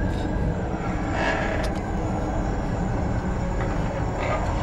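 Steady low rumble of desert wind, with a few brief, fainter higher sounds over it about a second in and near the end.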